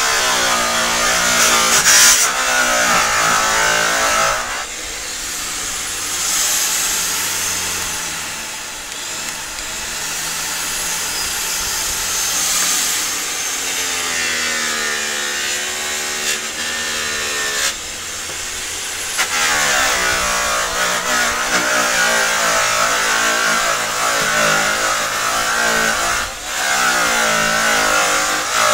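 Handheld electric polisher running against a semi-trailer's aluminium panel, cutting the metal with a polishing pad; its motor pitch rises and falls as it is pressed in and eased off. Louder and harsher for the first few seconds and again from about 19 seconds in, quieter in between.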